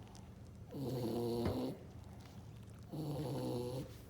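A dog snoring: a pitched, droning snore on each breath, twice, about two seconds apart.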